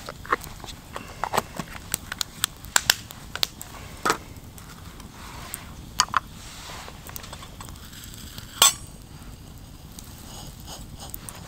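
Wood campfire crackling with irregular sharp pops, mixed with light metal clinks of a steel camp mug being handled and set down at the fire's edge. One louder sharp snap comes about two-thirds of the way through.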